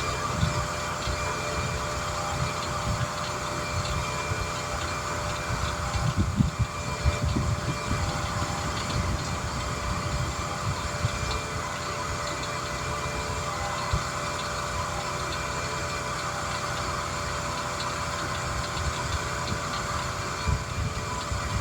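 A steady mechanical hum like an idling engine, with a few fixed tones, over irregular low rumbling from wind on the microphone.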